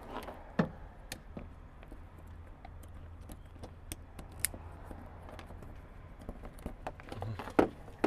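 Scattered light clicks and rattles of a car light and its press-in trim clips being handled and pried loose, with two louder knocks, one about half a second in and one near the end, over a low steady hum.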